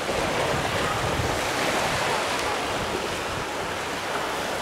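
Small waves washing onto a sandy shore, with wind on the microphone: a steady rushing noise.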